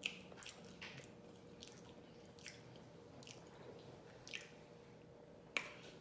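Quiet chewing with soft wet lip smacks and mouth clicks, about one a second, the sharpest near the end.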